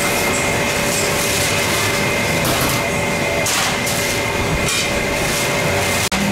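Steady mechanical din with a constant hum, and a few short scrapes and knocks near the middle.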